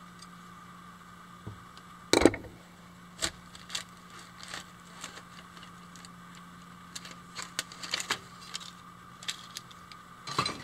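Scattered metallic clicks and knocks as a screwdriver works on an electric boat motor's end cap and the cap is worked loose and lifted off, with one loud knock about two seconds in and a cluster of knocks near the end. A steady faint hum runs underneath.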